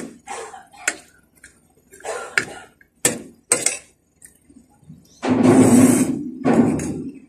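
A metal spoon clicks and scrapes against a plate, with chewing between the clicks. Then comes a loud, breathy exhale from the mouth lasting about two seconds.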